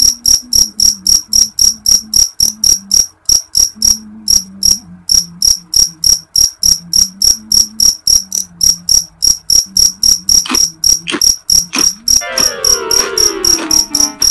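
Crickets chirping in a loud, even rhythm of about four or five chirps a second. Near the end a sliding tone falls in pitch over a couple of seconds.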